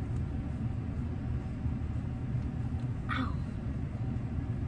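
A steady low hum, with one short breathy sound about three seconds in.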